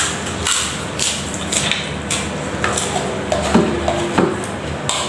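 Spoon clinking and scraping against a metal wok while noodles are scooped up and eaten, in a string of short sharp sounds.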